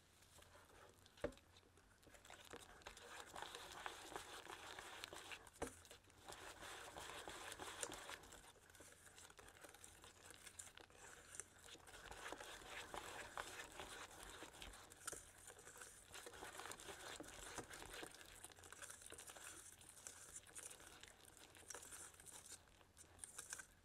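Wire balloon whisk stirring browned butter into financier batter in a stainless steel bowl: a faint, continuous scraping and swishing of the wires through the thick batter, with two sharp clicks, about a second in and near six seconds.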